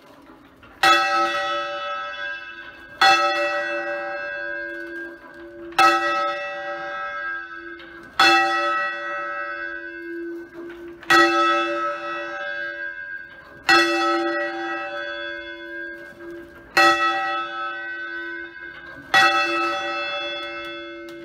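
A single church tower bell swinging full circle on its wheel, its clapper striking eight times, roughly every two and a half seconds, each stroke ringing on and dying away. The bell is being rung up, swung a little higher each stroke until it can rest mouth upward.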